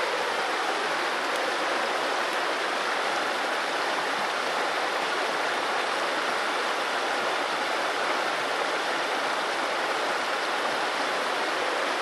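Small river after recent rains, its water rushing and splashing over rocks in shallow riffles: a steady, even flow of water.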